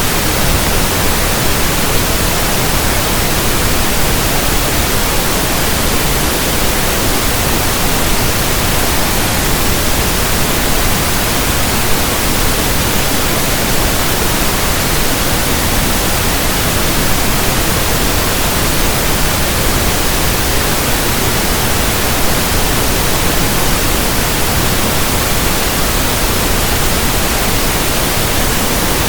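Steady synthetic pink noise: an even, unchanging hiss.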